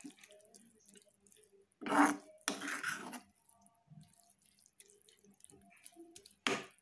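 Water splashing into a pan of cooking drumstick (moringa) leaves as the wet mixture is stirred, in short bursts about two seconds in and again near the end.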